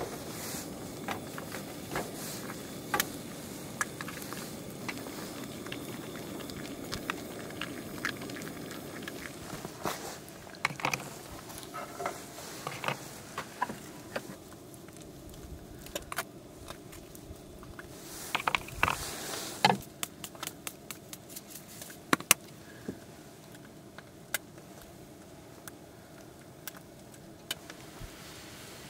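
Food preparation: a table knife scraping and spreading mashed avocado on toast, with scattered clicks and taps of utensils on a plastic plate and wooden cutting board, busiest in the middle. Under it runs a steady hiss that drops away about two-thirds of the way through.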